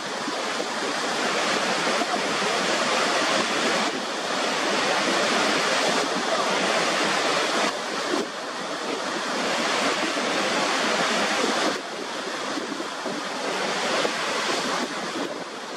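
Niagara Falls: a dense, steady rush of a large volume of water pouring over the brink of the falls, with small dips in level every few seconds.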